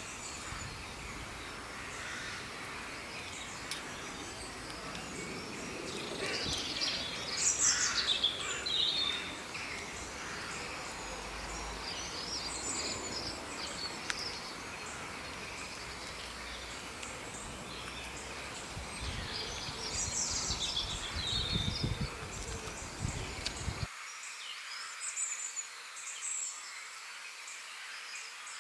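Forest ambience: a steady high insect drone with bursts of bird chirps and calls, loudest about a quarter of the way in and again about three quarters in. A low background rumble under it cuts off suddenly near the end.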